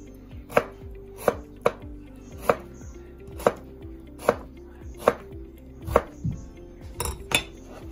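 Kitchen knife slicing a peeled mango into wedges, the blade knocking on a plastic cutting board about once a second, some eleven strokes with a quick pair near the end.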